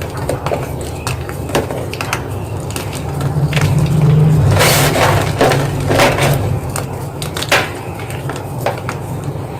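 Block of gym chalk crunching and crumbling in irregular sharp cracks, with one longer crumbling crush about halfway through, over a steady low hum.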